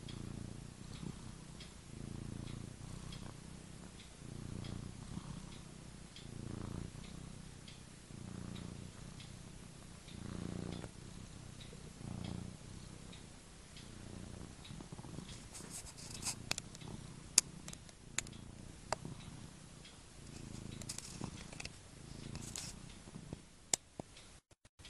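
Sleeping domestic cat snoring, a low rumble with each breath about every two seconds. A few sharp clicks fall in the second half.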